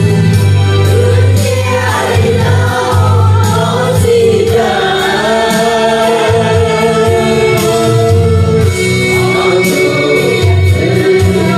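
Music: a group of voices singing a song together over instrumental backing with a steady bass line and percussion.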